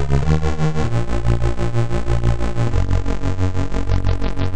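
Crumar Stratus synthesizer playing held notes that change pitch a few times. The volume pulses on and off about three times a second under low-frequency oscillator modulation of the VCA.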